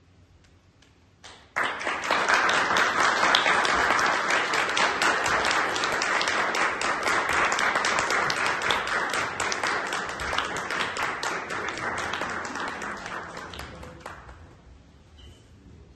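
Audience applauding. A couple of first claps come in about a second and a half in, then full applause, which dies away near the end.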